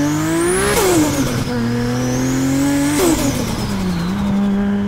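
A car engine accelerating hard through the gears. The pitch climbs, drops at a gear change about a second in, climbs again and drops at a second change about three seconds in, then runs steady and begins to fade near the end.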